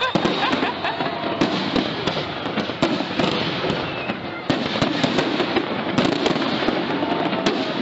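Fireworks display: aerial shells bursting one after another, with dense rapid crackling and sharp pops throughout.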